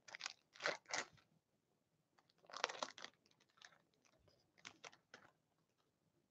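Foil wrapper of an O-Pee-Chee Platinum hockey card pack crinkling as it is torn open by hand, in a few short faint bursts: right at the start, about two and a half seconds in, and near five seconds.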